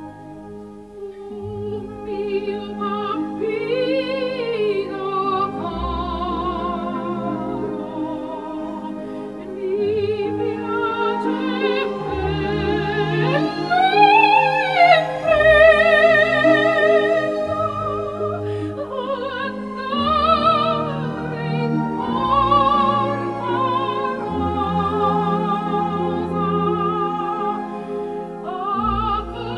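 Background music: an operatic voice singing long held notes with wide vibrato over sustained accompaniment, loudest about halfway through.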